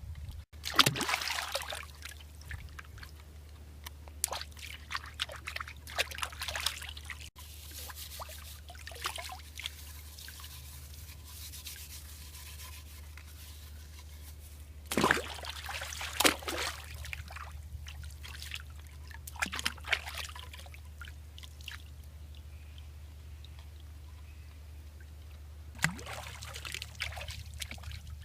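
Water trickling and splashing in irregular bursts, over a steady low hum.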